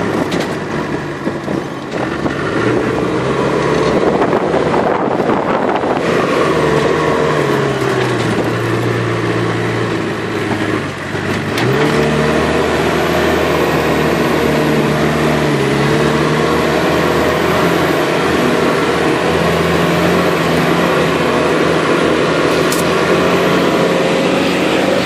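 Dune buggy engine running while driving over sand, its pitch rising and falling with speed, dropping briefly about eleven seconds in before picking up again.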